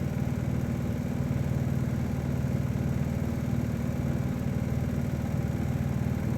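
A steady low mechanical hum, like a motor or fan running, unchanging throughout.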